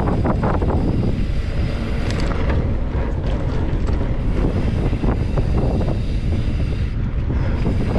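Wind buffeting the microphone in a steady low rumble while the mountain bike is ridden along a dirt trail, with scattered brief crackles over it.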